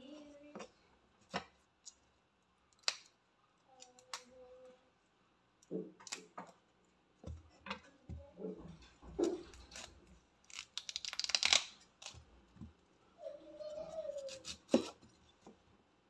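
A cauliflower being trimmed by hand and with a large knife on a bamboo cutting board: scattered sharp knocks and clicks of the blade and stalk on the wood, and a louder crisp crunching, tearing stretch about eleven seconds in as leaves and stalk are pulled or cut away.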